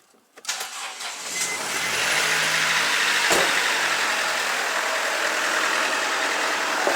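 Mercedes Sprinter 2.1 four-cylinder diesel engine starting: a few short clicks, then it catches about a second in and settles into a steady idle, with one sharp click about three seconds in. Its exhaust leak has just been repaired.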